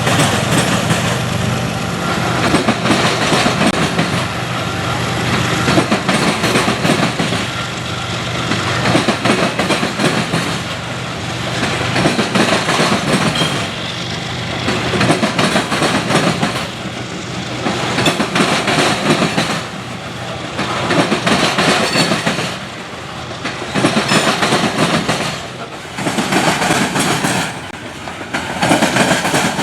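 Freight train rolling past, its wheels clattering over the rail joints. The clatter swells and fades every two to three seconds as each car goes by, after a low locomotive engine tone at the start.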